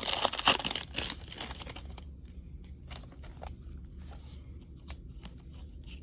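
Foil wrapper of a 2020 Topps Series 1 baseball card pack crinkling and tearing for about two seconds, followed by soft scattered clicks of cards being handled.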